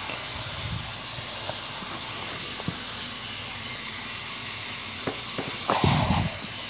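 Steady hiss of running water from a tap left on. A few light clicks and a short, louder rustle and thump come near the end, as a small dog steps out of a fleece pajama suit on carpet.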